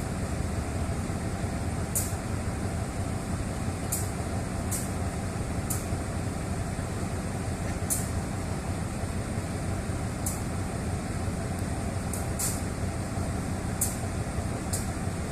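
Diesel-electric locomotive GEA 4554's engine running at a steady drone, with short sharp high ticks every second or so.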